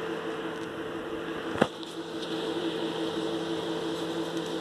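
Steady mechanical hum, with one sharp click about one and a half seconds in.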